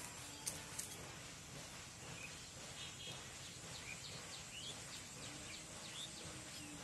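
Birds chirping in short high calls over a steady outdoor hiss, from about two seconds in. Two sharp clicks sound just after the start.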